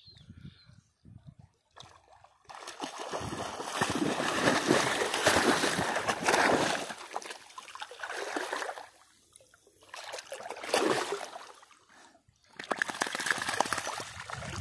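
Water splashing and sloshing as a Doberman wades and swims through muddy floodwater, coming in surges: a long stretch starting about two and a half seconds in, shorter bursts around ten to eleven seconds, and another near the end.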